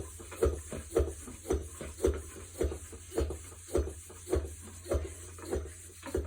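Bicycle pump worked with steady strokes, about two a second, charging an Airshot tubeless inflator tank with air.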